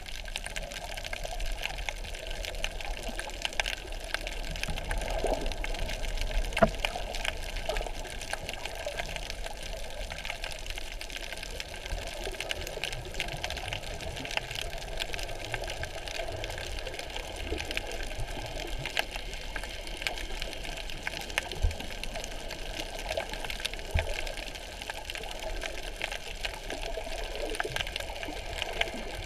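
Underwater ambience picked up by a submerged camera: a steady, muffled wash of water with many faint scattered clicks and crackles, a few sharper clicks standing out now and then.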